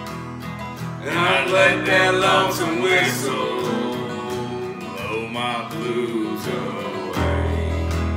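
Two acoustic guitars and an acoustic bass guitar playing a country tune, with a singing voice over them from about a second in until near the end. The low bass notes drop out while the voice sings and come back in near the end.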